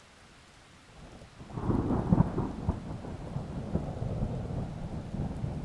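Faint rain, then thunder about a second and a half in: a loud rumble that peaks with a crack and keeps rolling.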